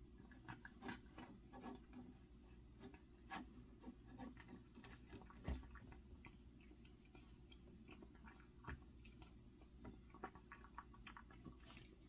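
Faint, irregular small clicks and smacks of a cat eating, the cat recovering from tooth extraction for stomatitis, with one louder knock about five and a half seconds in.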